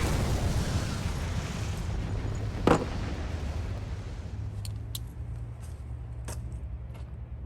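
A rushing hiss that fades over about two seconds, then one sharp, loud knock a little after two and a half seconds in, with a few faint ticks later, over a steady low hum.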